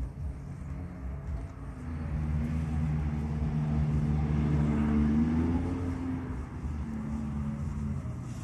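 A passing motor vehicle's engine: a low drone that swells over a few seconds, is loudest about halfway through, then fades.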